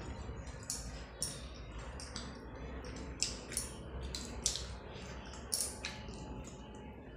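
Close-up wet eating sounds: mouth chewing and smacking on rice and chicken curry, with the squelch of rice being mashed with curry by hand, heard as irregular sharp wet clicks.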